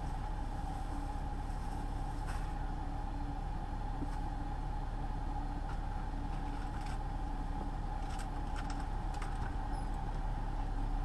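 Semi truck's engine and road noise droning steadily inside the cab, with a few light clicks scattered through, around two seconds in and again about eight to nine seconds in.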